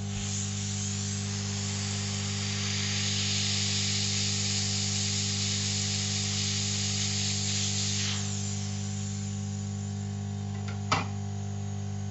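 Quick 861DW hot air rework station blowing, a loud even hiss of air over a steady hum, as it melts the solder to lift a small surface-mount capacitor off the circuit board. The hiss fades about eight seconds in, leaving the hum, and a sharp click comes near the end.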